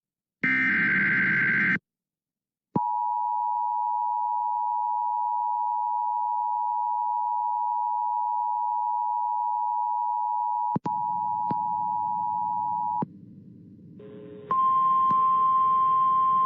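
Emergency Alert System sequence: the last SAME header data burst, a harsh digital screech, ends after about two seconds. After about a second of silence the two-tone EAS attention signal sounds as a steady dual-tone beep for about ten seconds, with a few clicks near its end. A short stretch of faint hiss follows, and then a single steady higher tone over static.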